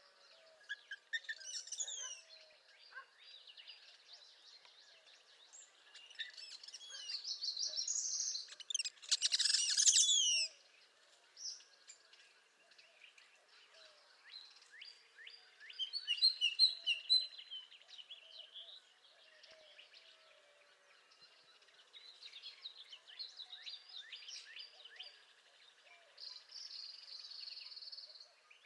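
Northern parula and other songbirds singing, many short songs and trills overlapping. The loudest song bursts out about nine to ten seconds in, and another is prominent around sixteen to seventeen seconds.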